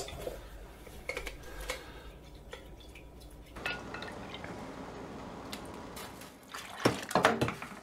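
Liquid pouring and dripping into a pot of hot water, with light clicks from a wooden spoon and a few sharp clinks near the end.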